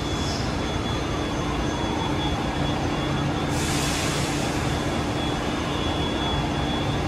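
Bombardier Innovia APM 300 automated people mover running on its rubber tyres along the guideway, heard from inside the car: a steady rumble with a constant low hum and a faint high whine. A brief hiss comes about halfway through.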